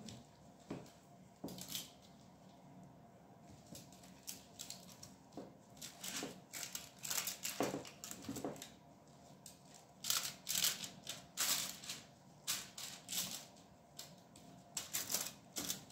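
Aluminium foil crinkling and rustling, with soft wet squishing, as gloved hands turn marinated chicken wings on a foil-lined baking tray. The crackles come in irregular clusters, busiest in the second half.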